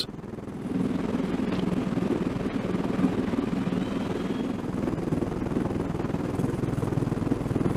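Steady engine and rotor noise of a rotorcraft, a fast, even chopping drone that swells about a second in.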